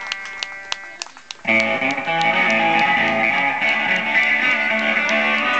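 Live rock band: a held electric guitar chord ringing over light regular ticks on the drums, then about a second and a half in the full band comes in loud with electric guitar, bass and drums.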